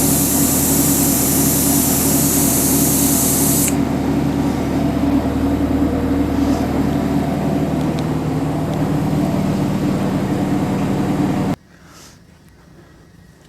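Oil extractor running as it draws transmission fluid out of the torque converter: a steady machine hum with a high hiss of air. The hiss stops abruptly about four seconds in, and the whole sound cuts off suddenly near the end.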